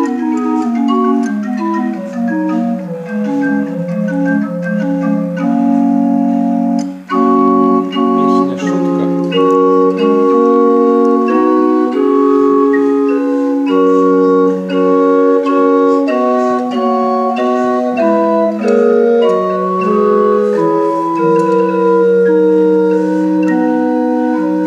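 Small tabletop pipe organ with wooden pipes played on its keyboard: a tune in held notes and chords, with a short break about seven seconds in.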